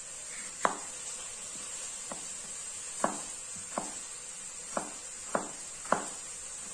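A serrated kitchen knife chops tomato on a plastic cutting board: about seven sharp knocks of the blade hitting the board, irregularly spaced, over a faint steady hiss.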